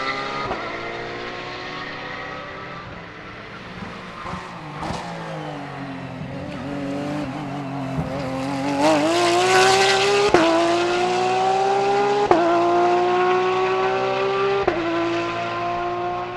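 Porsche 992 GT3 R race car's flat-six engine, its pitch falling as it slows and downshifts, then accelerating hard. Three upshifts in the second half each drop the pitch suddenly, and it is loudest as it comes closest.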